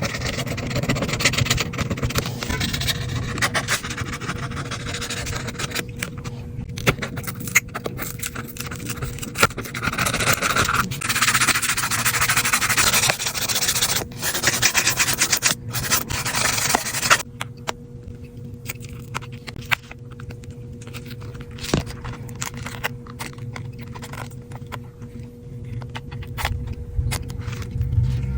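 Repair or cleaning tools scraping and rubbing against an iPad, with scattered sharp clicks and taps. The scraping comes in spells that swell and fade over a faint steady hum.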